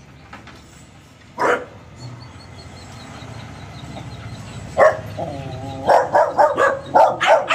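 Dogs barking in a kennel: a single bark about a second and a half in, then from about five seconds in a quick run of sharp barks and yips, several a second.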